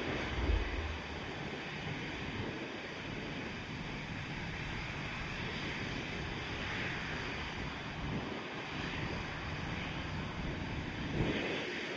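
Boeing 737 Next Generation airliner's CFM56-7B turbofan engines running at low power while the jet taxis, a steady even rush of engine noise. A brief low thump about half a second in.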